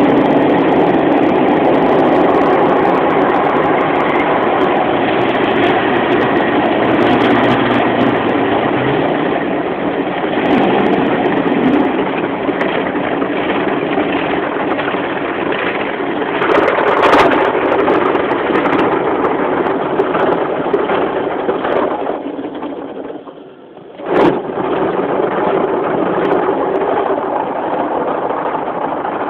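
Automatic car wash machinery heard from inside the car's cabin: a loud, steady rushing noise that dies away about 22 seconds in, followed by a single sharp knock, then a quieter steady noise.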